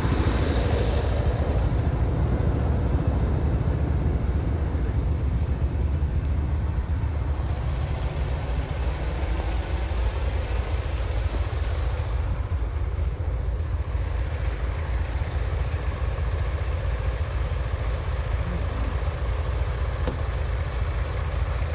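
Several old garden tractors, a John Deere 140 and a Case among them, idling together: a steady low engine rumble.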